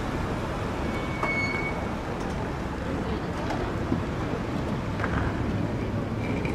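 Steady outdoor rumble of road traffic and vehicles at a kerb, with a brief high squeak about a second in.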